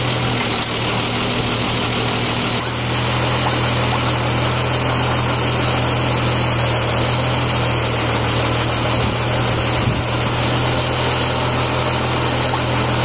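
Engine running steadily to power the hydraulics of a truck crane's clamshell grab, a constant low drone. The tone shifts slightly about two and a half seconds in, and there are a few faint knocks about three-quarters of the way through.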